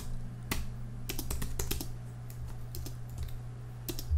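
Typing on a computer keyboard: irregular single keystrokes as a file name is typed, with a space-bar press near the end.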